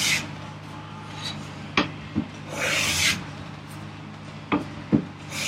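Stanley No. 6 hand plane taking shavings off a board: long hissing strokes a couple of seconds apart, with a few light knocks between them.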